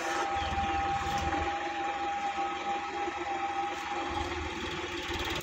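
Sonalika DI-50 RX tractor's diesel engine running, with a steady high whine over it that stops about four seconds in.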